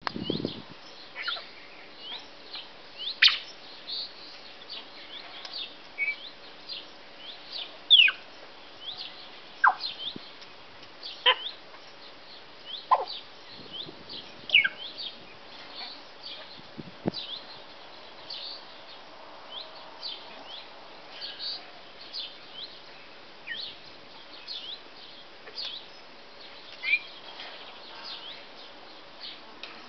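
An African grey parrot making a running series of short chirps and whistles, several a second, with louder sharp whistles sweeping down in pitch every few seconds.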